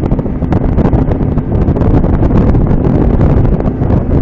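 Wind buffeting the microphone in loud, uneven gusts, over the steady hum of the outboard engine of a tritoon pontoon boat running under way through chop and boat wake.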